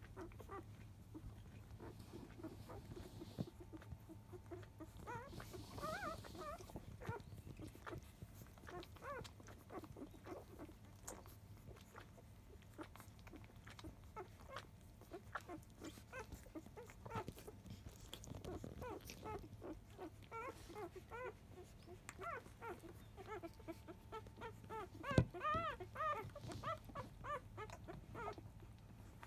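Five-day-old Labrador retriever puppies nursing, making frequent small squeaks and grunts with soft suckling clicks, over a steady low hum. A sharp click about 25 seconds in is the loudest sound.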